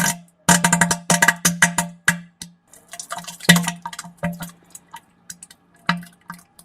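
Sputtering fart sounds of the diarrhea kind: runs of rapid wet pops over a low buzzing tone, thinning to scattered pops with one last burst near the end.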